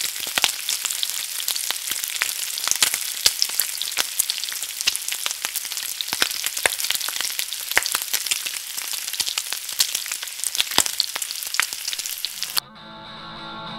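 Dense crackling hiss full of small pops and clicks, cutting off suddenly near the end, where quiet guitar music starts and grows louder.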